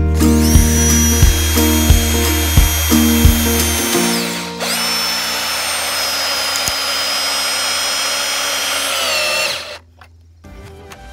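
Cordless drill driving screws into a wooden board in two long runs of steady motor whine. The first run stops about four and a half seconds in; the second starts again almost at once and sags in pitch just before it stops, near the end. Background music with a steady beat plays under the first few seconds.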